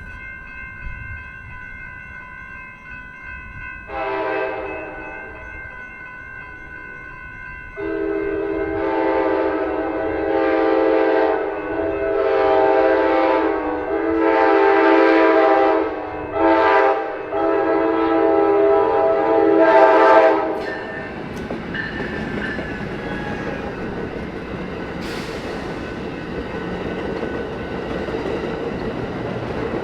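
Grade-crossing bells ringing, then a passenger train's five-chime K5LA air horn sounds the crossing signal: a short toot, then a run of long blasts with one short one near the end. As the horn stops, the train passes with a rumble and clatter of wheels on the rails.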